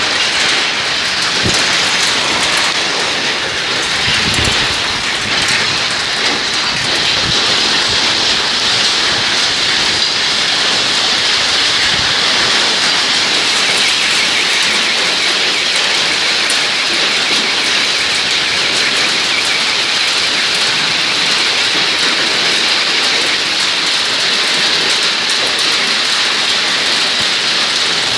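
Hailstorm: hail and heavy rain pelting surfaces, a steady dense hiss with many sharp clicks of hailstones striking. A few low thumps come in the first five seconds.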